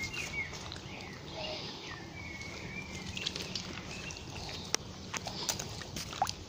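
Outdoor background noise with scattered soft clicks and steps as a dog's paws move over wet mud, and a few faint high chirps in the first couple of seconds.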